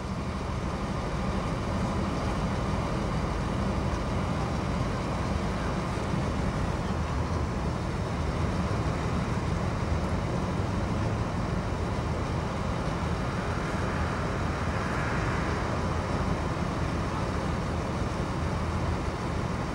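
Steady low rumble of a crane's engine running while the crane holds the weight of a ship's yard.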